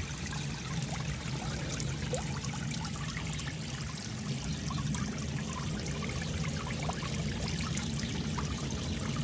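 Steady trickling of running water, continuous and even.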